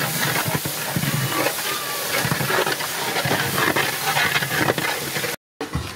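Wood fire under a large cooking pot hissing steadily with scattered crackles, while a long ladle stirs the gravy in the pot. The sound cuts out for a moment near the end.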